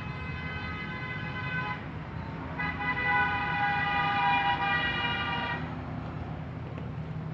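Mini CNC wood engraving machine running: a steady low hum with a high-pitched whine that sounds for about two seconds, stops briefly, then returns louder for about three seconds.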